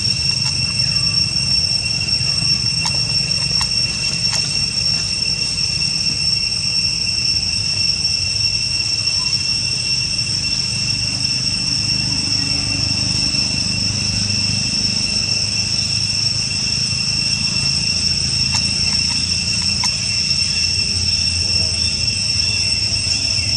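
Insects droning steadily at one high, unchanging pitch over a low, steady rumble, with a few faint clicks.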